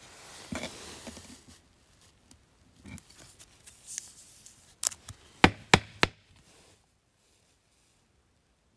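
A trading card being handled and slid into a clear rigid plastic top loader: soft rustling of card and plastic, then four sharp plastic clicks and taps a little under five seconds in, about a third of a second apart.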